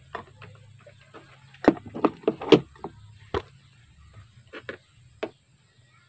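Irregular clicks and light knocks from handling multimeter test probes and wires, most of them bunched between about one and a half and three seconds in, with a few more near the end.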